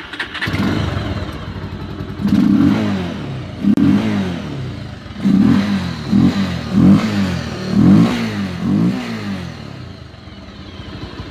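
Bajaj Pulsar 180's single-cylinder engine starting up, then revved in about seven quick throttle blips, each falling back, before settling to idle near the end. It breathes through a newly fitted K&N performance air filter and sounds very good.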